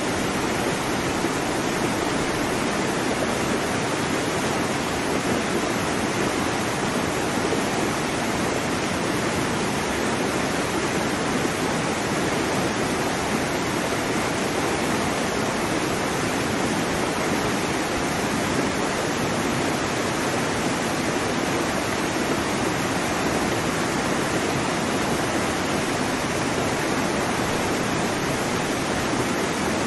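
Steady, even rushing of water, a constant hiss with no rise and fall of separate waves.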